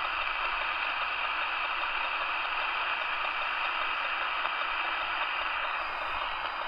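Steady static hiss from an Alan 8001 CB radio's speaker, receiving with no station talking between transmissions.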